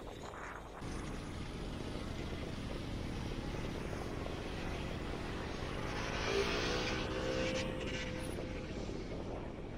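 Car driving, its steady engine and road rumble heard from inside the cabin, with a faint humming tone that swells and fades about six to eight seconds in.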